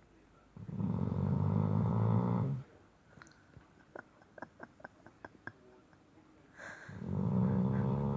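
Shar Pei dog snoring loudly in its sleep: two long rattling snores of about two seconds each, the second starting past the middle and running on, with a run of faint short clicks in between.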